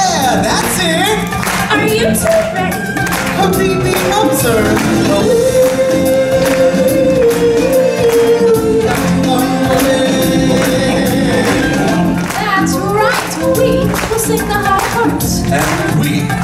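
Live stage-show music with singing and a steady beat; about five seconds in, a long note is held for some four seconds.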